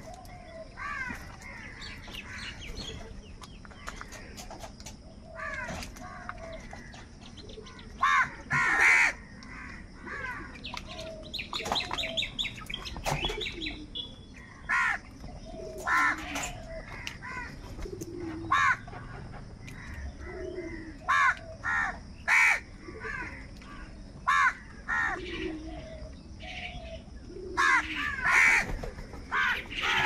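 A flock of house crows cawing at irregular intervals, short harsh calls that sometimes come in quick pairs or runs, several of them loud. About twelve seconds in there is a run of faster, higher chirping calls.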